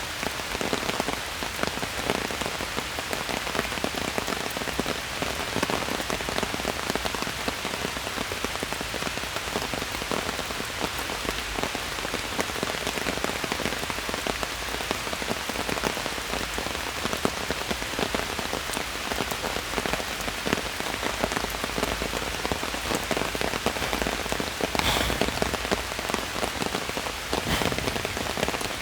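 Steady rain falling in a forest, a dense patter of drops on leaves and ground, with a few heavier drops standing out near the end.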